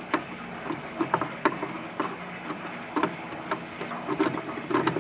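Screwdriver clicking and scraping against the plastic housing of a Siemens contactor as its cover is pried loose: irregular small clicks, one to several a second.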